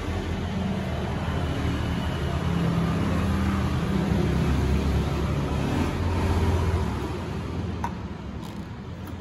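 A motor vehicle engine running nearby with a low, steady hum; it grows louder for a few seconds, then fades toward the end. A single small click comes near the end.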